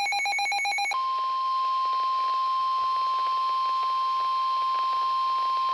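The last of an Emergency Alert System SAME header, a buzzy digital data burst. About a second in it gives way to the NOAA Weather Radio 1050 Hz warning alarm tone, one steady unbroken pitch, which signals that a warning message is about to be read.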